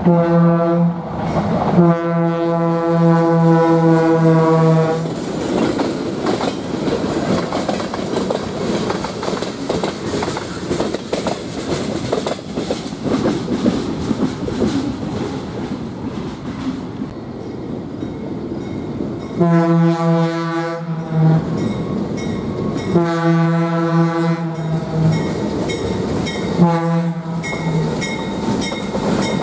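Diesel locomotive air horn sounding two long blasts, followed by about fifteen seconds of train rumble and rail noise. Then the horn sounds a long blast, another long blast, a short toot and begins a final long one: the standard grade-crossing warning.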